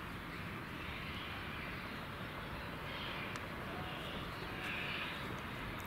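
Prussian T 18 (DR class 78) steam tank locomotive working in the distance as it pulls away with its train: a steady, even rumble.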